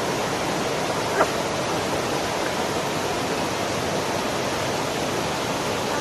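Small waterfall rushing steadily over boulders into a pool, an even roar of white water. A brief sharp sound stands out about a second in.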